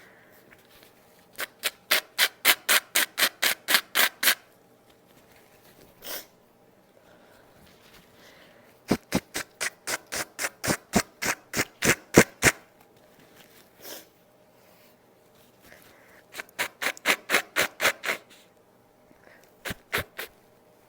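Quick rubbing strokes, about five a second, in three runs of a few seconds each, with a few single strokes between the runs.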